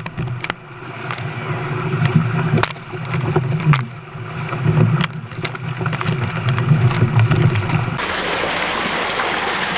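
Water and trout rushing and splashing out of a hatchery stocking truck's tank into the lake, with scattered sharp splashes. The low rush stops abruptly about eight seconds in, leaving a brighter hiss.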